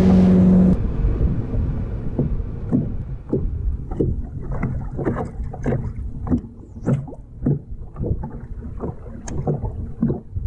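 A steady hum with hiss that cuts off suddenly under a second in, then small waves slapping irregularly against the hull of a bass boat, with wind rumble on the microphone.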